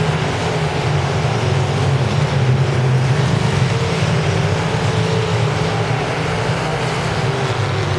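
Several dirt late model race cars' V8 engines running hard together at racing speed, a loud steady drone whose pitch wavers up and down as the cars go around the oval.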